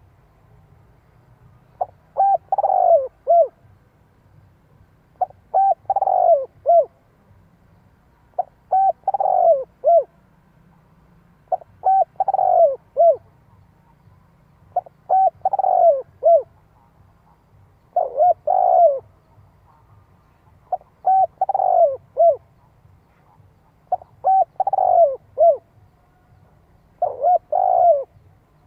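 Spotted dove cooing its repeated song, nine phrases about three seconds apart. Each phrase is a few short notes, then a longer falling coo and a short closing note.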